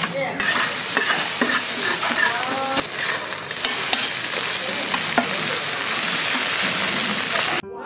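Egg and glass-noodle batter for gyeran mandu sizzling on a flat steel griddle while a metal spatula scrapes it up and chops through it, with short clacks of the blade on the plate. The sizzle cuts off suddenly near the end.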